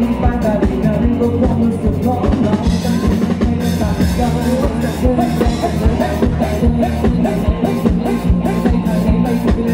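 Live rock band playing at full volume through stage PA speakers: a steady drum-kit beat with electric guitar and bass guitar.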